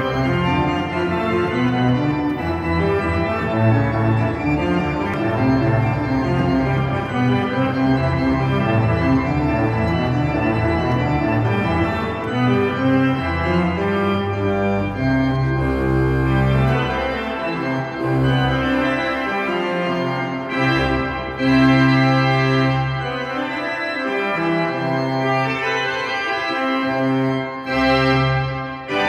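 Freshly renovated church pipe organ being played with hands and feet: a flowing piece with many notes sounding together, and long-held low pedal notes underneath from about halfway through.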